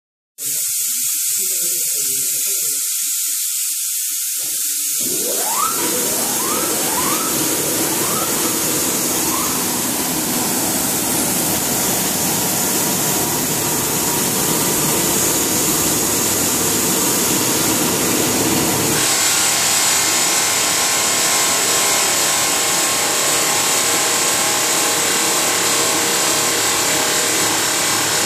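Multi-station rotary-table cookware polishing machine running: a loud, steady, hissing grind of polishing wheels on the metal pots, with motor hum underneath. Several short rising whines come about a second apart between five and ten seconds in, and the tone shifts about two-thirds of the way through.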